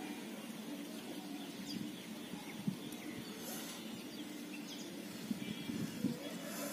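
Outdoor ambience: faint bird chirps over a steady low background hum, with a few soft knocks, the sharpest about two and a half seconds in.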